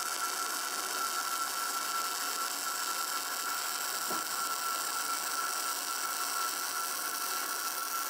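Self-shielded flux-cored arc welding with E71T-8 (NR-232) wire: the arc burns steadily as a horizontal fillet weld is run, a continuous even hiss with a thin steady whine above it.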